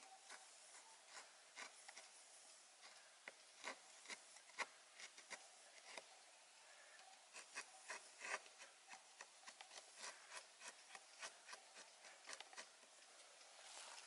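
Faint, irregular scraping strokes and light ticks of an axe blade shaving thin curls off a stick of wood, as when carving a feather stick.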